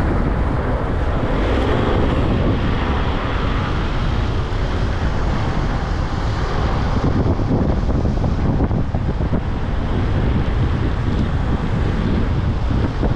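Heavy wind buffeting the microphone of a camera moving fast downhill, over a steady road rumble from wheels rolling on asphalt.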